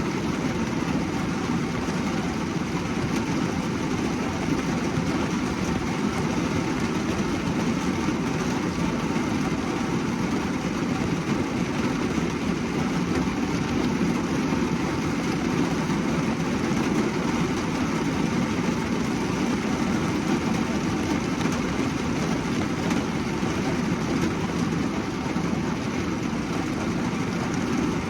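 Rain falling steadily on a car's roof and windows, heard from inside the cabin as an even, unbroken wash of sound.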